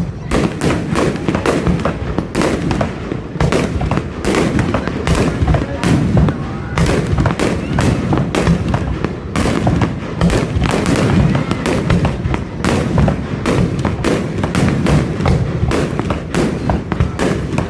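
Fireworks display: a rapid, unbroken barrage of bangs and crackles, several a second, with voices of onlookers underneath.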